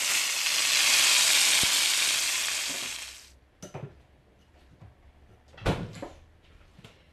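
Battered milkweed pods frying in hot oil in a pan: a steady, loud sizzle that fades out about three seconds in. A few light knocks follow in the quiet.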